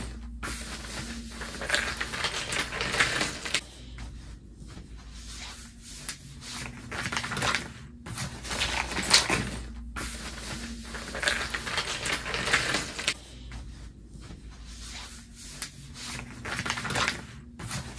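Cardboard jigsaw puzzle pieces being broken apart and swept by hand across a cardboard sheet: repeated rustling, scraping and light clattering in bursts of a second or two with short pauses between, over a faint steady hum.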